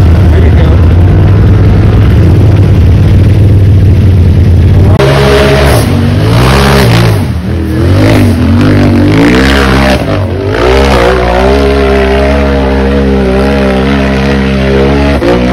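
Loud side-by-side UTV racing engine working hard: held at steady high revs for about five seconds, then revving up and down again and again as the machine fights up the dirt hill.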